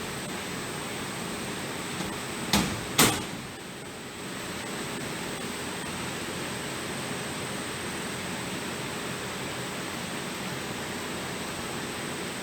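Two sharp knocks about half a second apart over a steady hiss; the hiss dips briefly after the second, louder knock.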